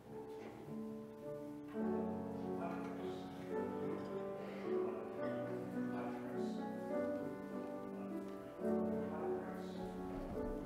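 Slow instrumental keyboard music in sustained chords, with no singing. A fuller chord comes in about two seconds in and again near nine seconds.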